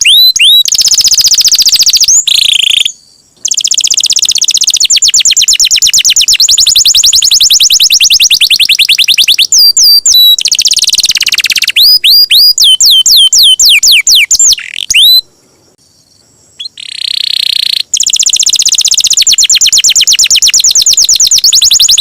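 Domestic canary in full song: long, very fast trills of repeated notes mixed with sweeping whistled notes that rise and fall, loud throughout. The song breaks off briefly about three seconds in and again around sixteen seconds in.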